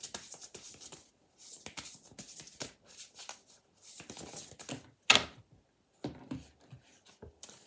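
Oracle card deck shuffled by hand: quick repeated papery rustles and flicks of the cards, with one sharp tap about five seconds in and softer knocks after it as the cards meet the table.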